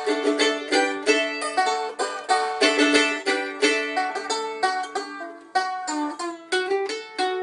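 Banjo picking: a fast run of plucked notes, several a second, with a brief dip about three-quarters of the way through before the picking resumes.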